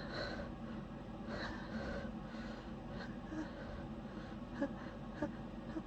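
A person sniffling and breathing in short, noisy breaths while holding back a sneeze, with a few short clicks near the end.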